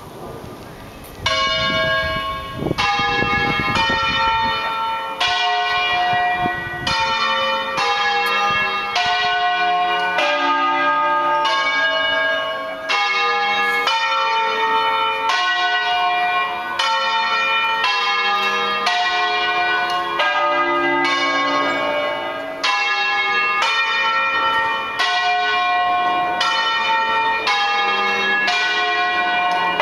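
Five balanced bronze church bells tuned D, F, G, A and C, rung in the Bolognese 'doppio' style: swung from the mouth-up position and struck in a repeating pattern of overlapping strikes. The ringing starts about a second in, after a moment of wind rumble, then runs on loud and steady.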